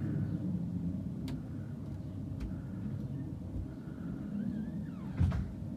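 Steady low background rumble, with two faint clicks early on and a louder dull thump near the end.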